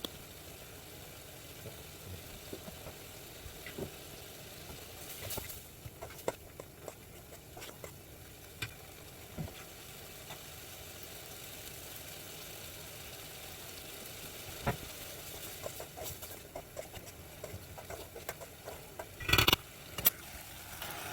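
Tteokbokki cooking in a pan while it is stirred: scattered clicks and taps of a utensil against the pan over a low steady sizzle, with a louder clatter near the end.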